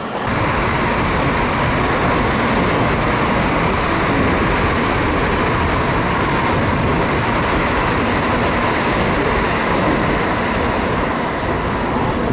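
Electric commuter train running on the line, a steady, even rush of wheel and running noise with a faint steady hum.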